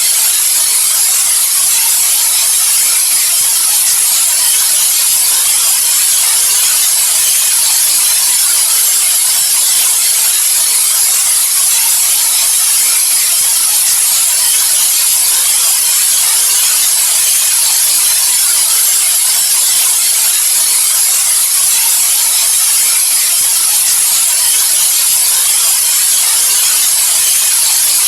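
Continuous white-noise hiss, steady and unchanging, bright and weighted toward the high end with little low rumble.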